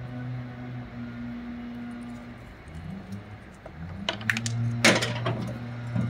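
In-shell hazelnuts clicking and knocking against each other and the metal window track as a squirrel grabs one: a quick clatter of sharp clicks about four seconds in, loudest near five seconds. A steady low hum runs underneath.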